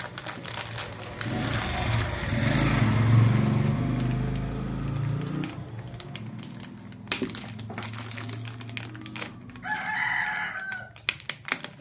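A rooster crowing, with a pitched call about ten seconds in, over scattered sharp clicks and taps.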